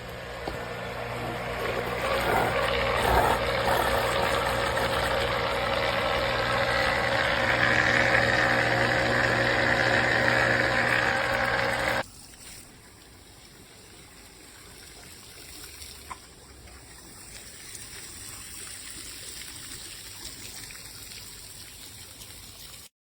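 Submersible sump pump running, a steady motor hum with rushing, splashing water. About halfway through, the sound drops off suddenly to a faint trickle of water.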